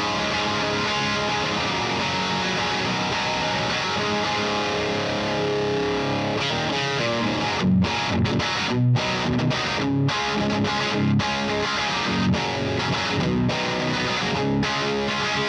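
Overdriven electric guitar riffs, played through a Slamurai overdrive pedal into a Satellite Neutron amp. The first half is held, ringing chords. About halfway through the playing turns to short, choppy chord stabs with brief stops between them, and it rings out again near the end.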